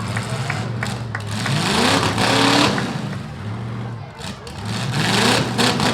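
Demolition derby car engines revving hard, the pitch rising steeply twice: about a second and a half in and again about five seconds in, with a few short knocks.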